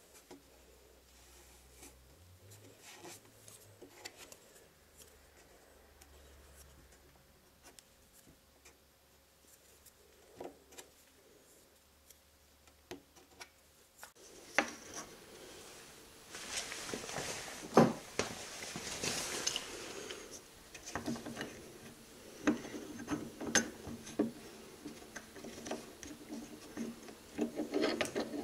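Paper towel rubbing and crinkling against plywood as it wipes around a small wooden block, with scattered light clicks and taps. Faint for the first half, then louder and busier from about halfway. A metal C-clamp is handled near the end.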